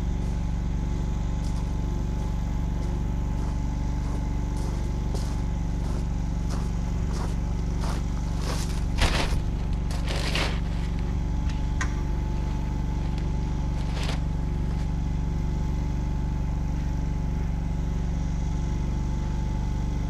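A motor running steadily with a low, even hum, and a few sharp knocks of lumber boards bumping as they are carried in through a doorway, around nine, ten and fourteen seconds in.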